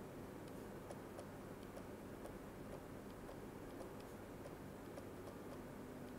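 Faint, irregular clicks and taps of a stylus on a pen tablet while handwriting, over steady faint background noise.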